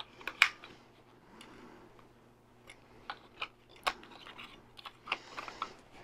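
Scattered small plastic clicks and taps as batteries are pressed into the battery compartment of a bed-shaker alarm's base unit, the loudest about half a second in.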